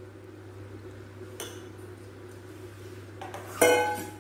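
Boiled soya chunks poured from a stainless steel pot into a steel pan of gravy, mostly quiet, then a single ringing clank of steel on steel near the end.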